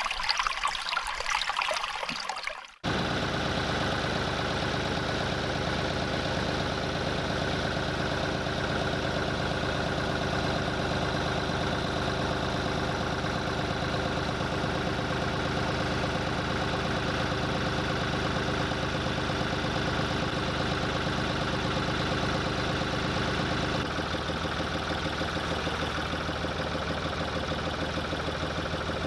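Compact tractor engine running steadily with an even note. About five seconds before the end its note shifts lower. It is preceded by a brief noisy sound that cuts off abruptly about three seconds in.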